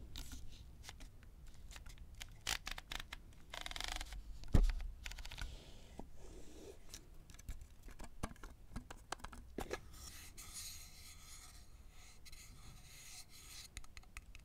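Close-miked tapping, scratching and rubbing on a hard object, with many small clicks and one sharp knock about four and a half seconds in. From about ten seconds in there is a longer stretch of scraping.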